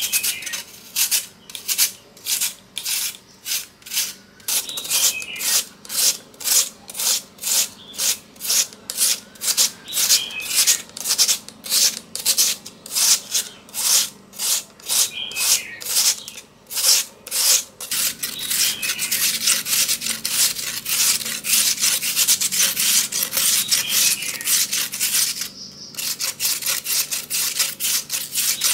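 Raw peeled potato grated on a stainless steel grater: scraping strokes about two a second, turning faster and closer together about two-thirds of the way through, with a brief pause near the end.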